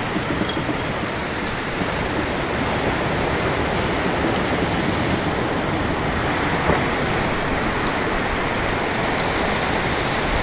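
Steady noise of surf breaking on a beach, with a strong cross-shore wind buffeting the microphone.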